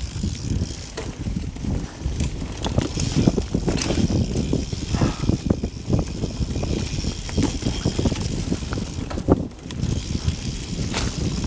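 Silverback Slider LT full-suspension mountain bike running fast down a dirt and leaf-covered forest singletrack: tyres on the ground, with the chain and frame rattling and clacking over bumps. Wind buffeting the camera's microphone adds a steady low rumble.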